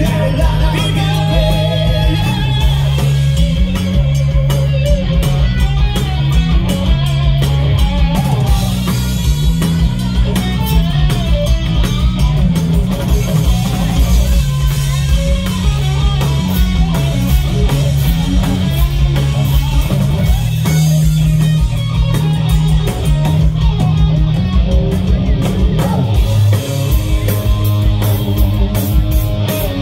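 Live amplified rock band playing: electric guitars, bass guitar and a drum kit.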